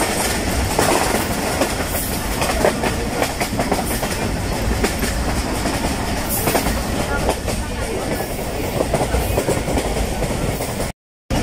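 Passenger train running on its rails: a steady rumble with many small knocks and rattles from the wheels and carriage. The sound cuts out for a moment near the end.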